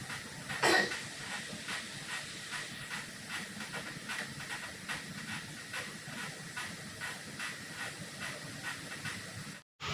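Elliptical cross-trainer in use: a steady hiss with soft rhythmic ticks about three times a second from the pedal stroke, and one louder knock about a second in. The sound cuts off abruptly just before the end.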